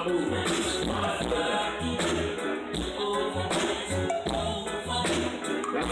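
Live band music with singing played through a large stage PA system during a sound check, over a steady repeating bass beat.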